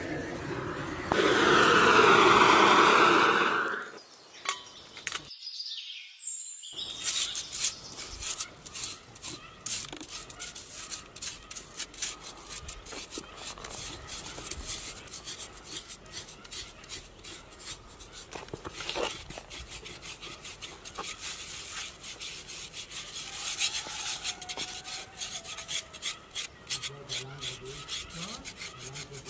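A gas burner blows loudly for about two seconds as it singes a cow's head. After a short gap, a knife scrapes the charred hair off the singed hide in many quick rasping strokes.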